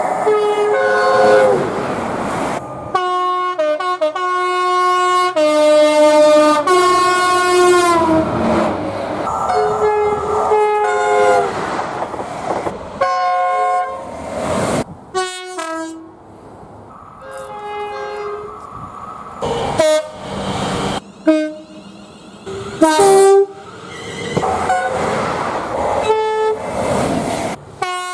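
Train horns sounding in a string of edited clips: chords of several steady notes, some as short toots and some as longer blasts, with the noise of passing trains between them. About eight seconds in, one horn's pitch slides down as its train goes by.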